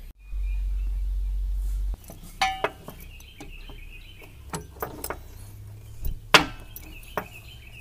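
Light metallic clinks and taps of steel parts being handled on a mower deck, as the extension spring is hooked onto the eye of a homemade deck-belt tensioner rod, with some brief ringing after the taps. A steady low rumble is loudest for the first two seconds, and birds chirp faintly.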